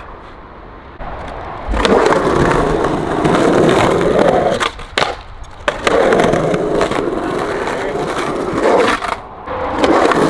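Skateboard wheels rolling loud and fast on concrete, starting about two seconds in, with a couple of sharp clacks of the board around the middle and a brief break in the rolling near the end.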